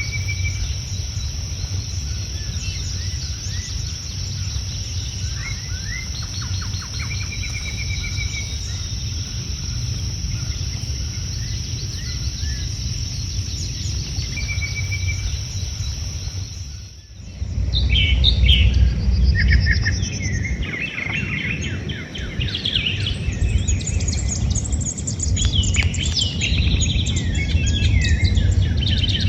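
Wild birds calling and singing: scattered short chirps over a steady high hiss and low rumble at first, then, after a sudden change about two-thirds of the way in, many birds singing at once with overlapping chirps and trills.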